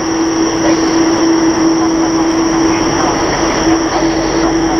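Jet engines of a Boeing 787-8 Dreamliner at taxi idle: a steady hum with a constant high whine over it and a rushing noise.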